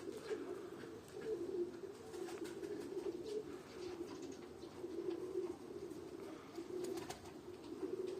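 Pigeons cooing continuously, several low wavering coos overlapping, with faint scattered clicks.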